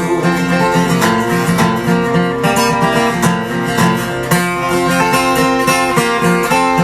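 Acoustic guitar accompaniment to a folk song, with picked and strummed notes and no singing.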